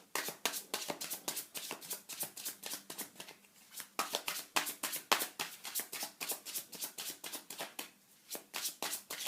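A tarot deck shuffled by hand: a quick run of light card slaps and clicks, pausing briefly twice.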